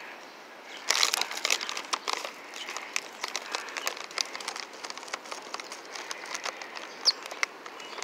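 Irregular crinkling and crackling of a food wrapper being handled, starting about a second in, with one short high bird chirp near the end.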